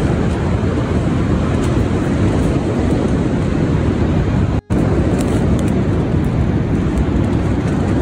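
Windstorm gusting hard against a tent, heard from inside as a loud, steady rumble of wind buffeting the microphone. The sound drops out for an instant a little past halfway.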